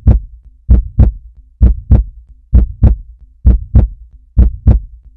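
Heartbeat sound effect: loud, deep lub-dub double thumps repeating steadily, about one pair a second.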